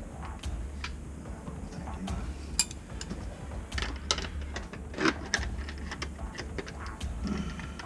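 Irregular clicks and clinks of pliers and metal plumbing fittings being handled and tightened, over a steady low hum.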